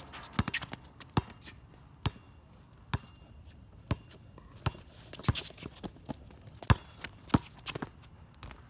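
Basketball being dribbled on a hard outdoor court: single sharp bounces at an uneven pace of about one a second, with a quick double bounce near the start.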